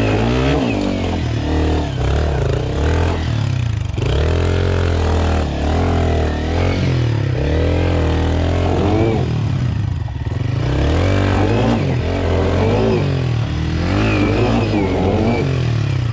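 Yamaha WR155R's single-cylinder four-stroke engine revving up and down again and again as it pulls the bike up a rutted dirt-trail climb, with a brief easing of the throttle about ten seconds in.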